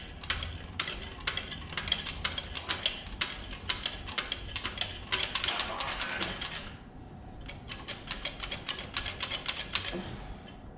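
Hand socket ratchet clicking in quick runs as a stud holding the dipstick tube is backed out of the engine. The clicking pauses about seven seconds in, then resumes faster.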